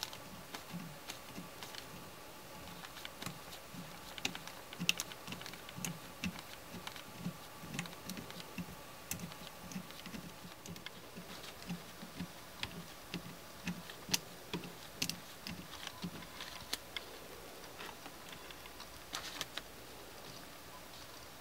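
3D-printed peristaltic pump running quietly, squeezing surgical tubing as its rollers turn: a soft low pulse about twice a second with irregular light clicks and ticks. The pulsing fades out about three-quarters of the way through while the clicks go on.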